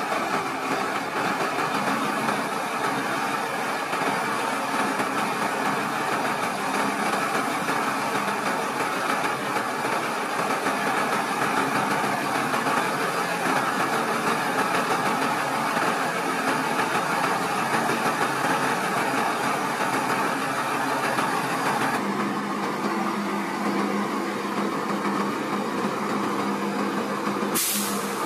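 Heavy truck's diesel engine running steadily while it drives the hydraulics of a Palfinger knuckle-boom crane as the boom extends. About 22 seconds in, the sound shifts to a steadier, lower hum. A single sharp click comes near the end.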